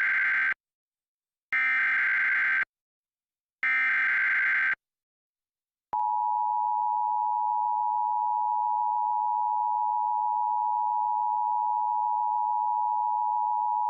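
Emergency Alert System broadcast tones. First come three short bursts of the SAME digital header, each about a second long and two seconds apart. Then, about six seconds in, the steady two-tone EAS attention signal begins and holds unchanged; it announces an emergency alert broadcast.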